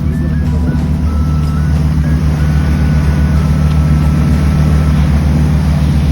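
Boat engine running with a steady low drone. For the first five seconds a faint simple melody of held, stepping notes plays over it.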